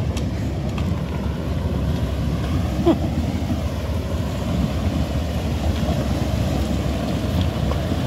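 Steady low rumbling noise with wind buffeting the microphone.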